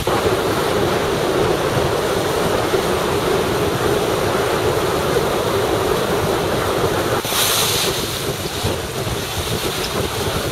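Water rushing and splashing along the hull of a shrimp cutter under way, mixed with wind buffeting the microphone. About seven seconds in comes a louder hiss of spray lasting a second or so.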